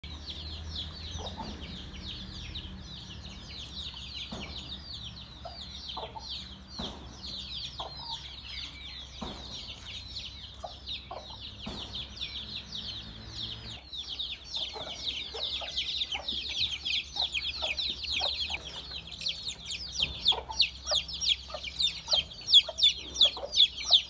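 A brood of chicks peeping without pause: a dense stream of short, high, falling cheeps that grows louder over the last several seconds.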